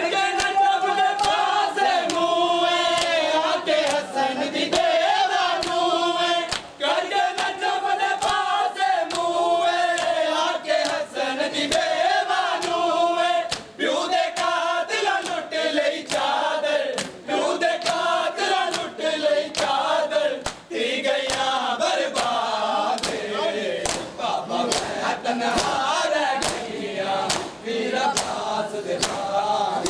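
Men chanting a mourning chant in unison, with sharp slaps of hands striking bare chests repeating through the chant: matam, the Shia chest-beating of Muharram mourning.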